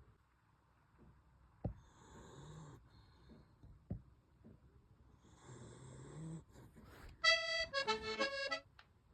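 A sleeping dachshund snores, giving two raspy snoring breaths. Near the end comes the loudest sound, a high-pitched wavering whine or squeal from the dog.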